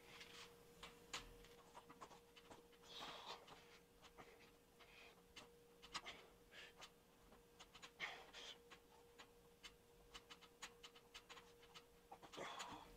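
Faint panting breaths every few seconds during a set of knee ups, with small clicks and a faint steady hum underneath.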